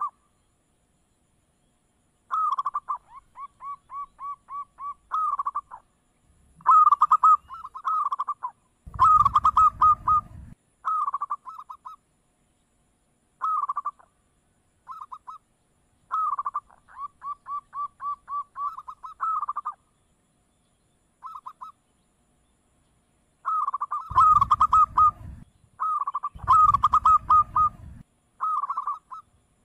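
Zebra dove (perkutut) cooing: a dozen or so short phrases of quick, staccato, repeated notes, each phrase broken off by a short silent gap. A low rumble sits under a few of the phrases.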